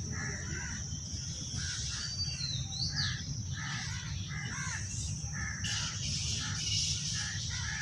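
A chorus of short, harsh bird-like calls, repeating over and over, with a whistled glide about two seconds in and a steady high hiss behind.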